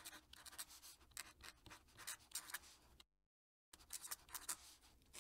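Faint scratching of a fountain pen nib on paper, writing cursive in quick short strokes. About three seconds in the sound cuts out completely for about half a second, then the writing strokes resume.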